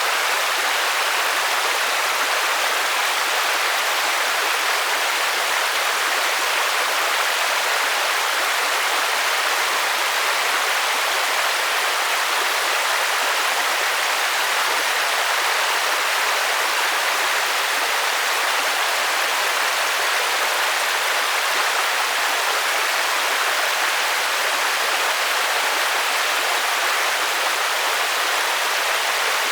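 Steady rain as an even, unbroken hiss, strongest in the upper mid-range, with no separate drops or thunder standing out.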